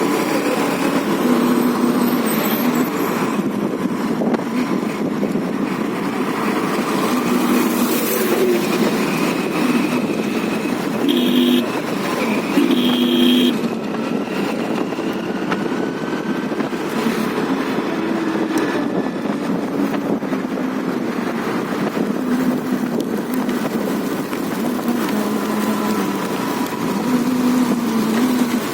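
Scooter ride in traffic: steady wind and road noise with the engine running, broken near the middle by two short horn honks a second and a half apart.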